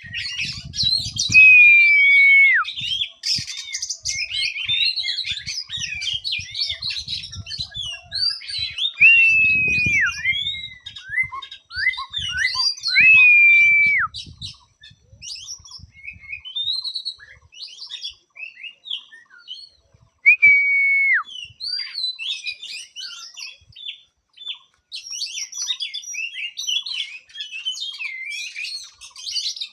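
A caged songbird singing: quick, varied chirps and twitters, broken four times by a long held whistle that drops sharply at its end. Faint low thumps run under the song through the first half.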